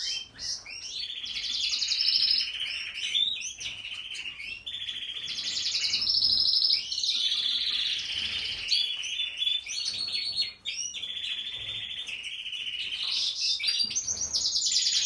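Domestic canary singing a continuous song made of fast, high trills, each held for a second or two before it changes to the next.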